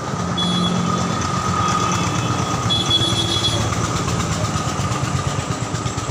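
An engine running steadily, with a low rumble and a constant whine, and two short high beeps about half a second in and again near three seconds.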